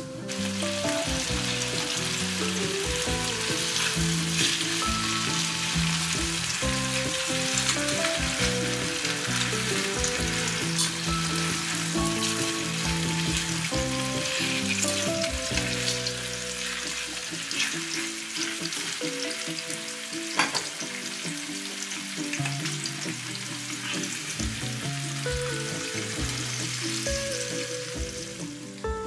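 Bone-in, skinless chicken thighs sizzling steadily as they fry in olive oil in a pan, with a few sharp clicks, the loudest about twenty seconds in.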